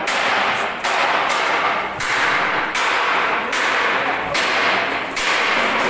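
Concrete mixer drum being turned and tilted by hand through its handwheel and ring gear: a rough metallic scraping and grinding that comes in repeated strokes, a little under one a second, each starting with a sharp clack.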